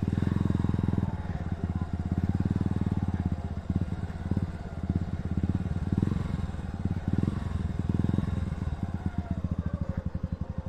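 Motorcycle engine running at low speed, its separate exhaust beats clearly heard, with the throttle eased on and off so the sound swells and drops several times.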